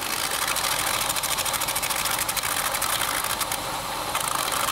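A rapid, even mechanical clatter of many fine ticks a second, mostly high in pitch, that fades out about three and a half seconds in.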